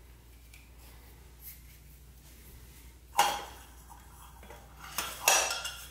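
Clear lidded canisters and their lids knocking and clinking on a hard countertop as cotton swabs are packed into them: a sharp clink about three seconds in and another couple of clinks about two seconds later.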